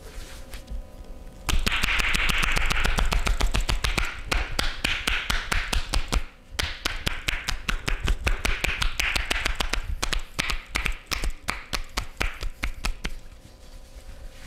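Rapid percussive massage: hands tapping and slapping quickly on the body in a fast run of sharp taps. It starts abruptly about a second and a half in and thins out near the end.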